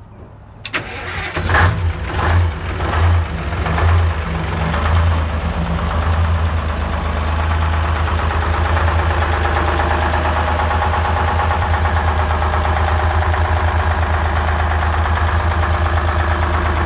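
The Detroit Diesel two-stroke engine of a 1977 International cabover fire truck being started. A click, then a few seconds of uneven firing as it catches, and by about six seconds in it settles into a steady idle.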